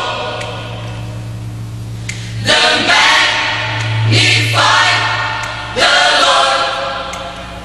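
Large mixed choir singing gospel in swelling phrases with short breaks between them, over a steady low hum.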